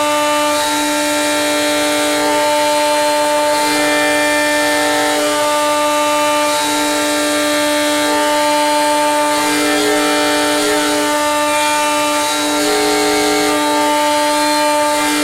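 CNC mill's spindle running steadily with its cutter machining aluminium; the cutting tone shifts on and off every second or two as the cutter's engagement changes.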